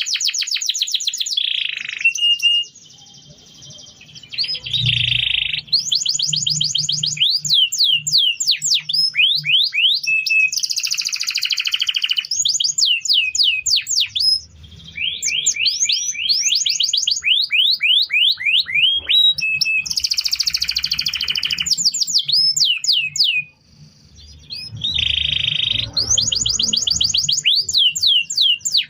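Domestic canary singing a long song of rapid trills: runs of quickly repeated sweeping notes, with brief pauses between phrases.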